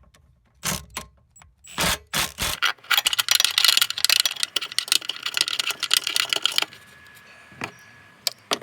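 Hand work on parts under a car dashboard: a few separate sharp clicks, then several seconds of dense clicking and rattling that stops suddenly, followed by a few more clicks.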